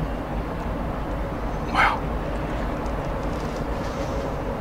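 A single short dog bark about two seconds in, over a steady low rumble of background ambience.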